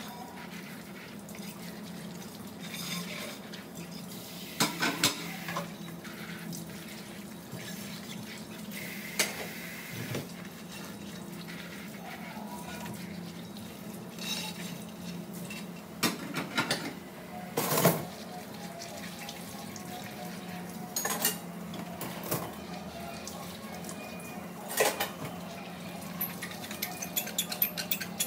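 Tap water running steadily into a kitchen sink while plates and dishes are rinsed by hand. Scattered clinks and clatters of dishes knock together, the loudest about two-thirds through, with a quick run of small clicks near the end.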